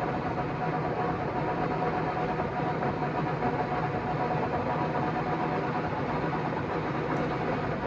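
LeBlond heavy-duty engine lathe running steadily at a higher spindle speed. A mix of gear and motor noise from its straight-cut gears carries a steady whine, with vibration picked up through the camera tripod resting on the chip pan.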